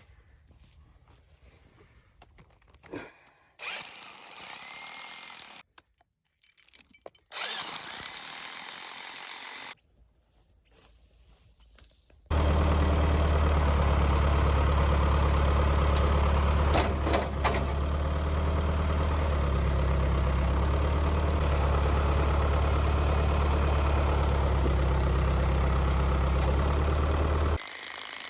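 Several short, quieter cuts of work sounds, then from about twelve seconds in a heavy engine running loud and steady for about fifteen seconds, ending abruptly near the end.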